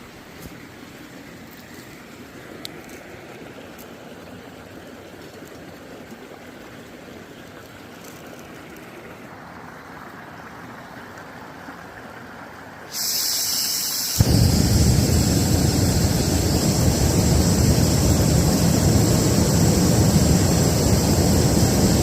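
A creek flowing faintly; about 13 seconds in, a hiss starts suddenly, and a second later a backpacking stove lights and burns with a steady, loud roar, heating water to boil.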